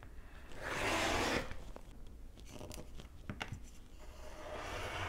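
Rotary cutter blade rolling through denim along a quilting ruler on a cutting mat: a gritty cutting sound about a second in and again near the end, with a few light clicks in between.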